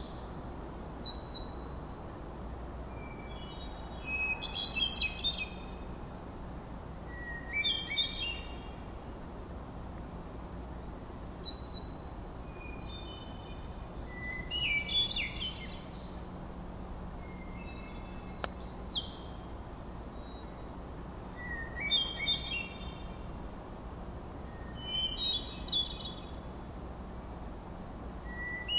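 Hermit thrush singing: about nine separate flutey phrases, one every three to four seconds. Each opens with a held clear note and breaks into a quick cluster of higher ringing notes, and each phrase is pitched a little higher or lower than the one before.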